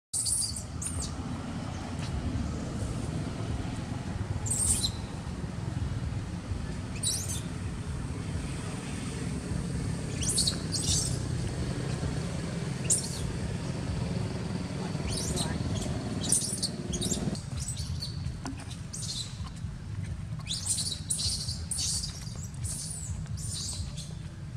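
Short, high-pitched animal chirps, one or two at a time and then a quick cluster near the end, over a steady low outdoor rumble that thins out about two-thirds of the way through.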